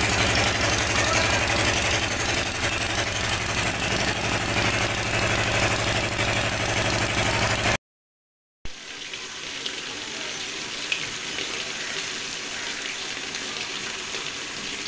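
Water-well drilling rig's engine running steadily with a fast even beat. After an abrupt silent cut about eight seconds in, there is a quieter steady rush of water gushing and splashing from the bore's discharge pipe.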